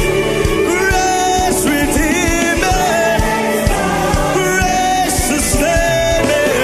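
Gospel choir and lead voice singing a worship song, with drums keeping a steady beat underneath.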